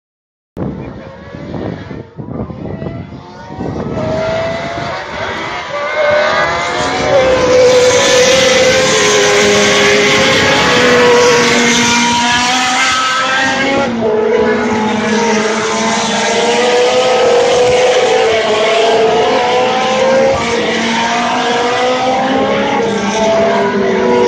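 A field of historic Formula One cars racing, many engines at once with their notes rising and falling through the gears. The sound builds over the first few seconds, then stays loud as the pack comes closer.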